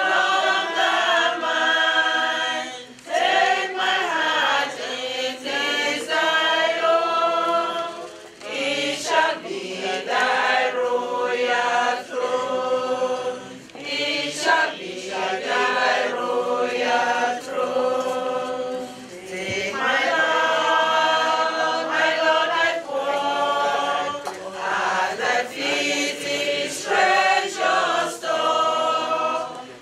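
A choir singing a hymn, in long held phrases with brief pauses between them.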